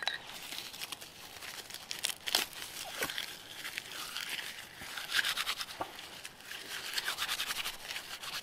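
A striker scraping down a ferrocerium fire steel in several bursts of quick strokes, throwing sparks onto birch bark tinder.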